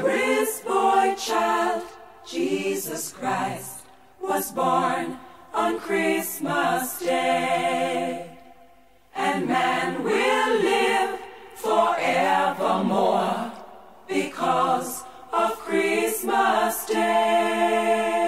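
Background music: a sung melody in phrases with short pauses, carried by voices with little or no beat.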